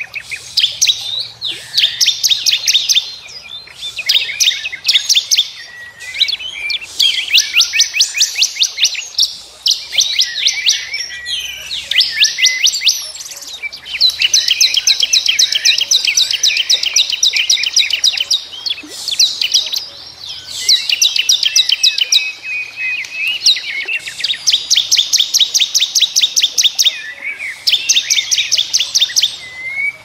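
Songbird singing long, fast trills of rapidly repeated high notes, phrase after phrase with short breaks, with a few warbled notes mixed in.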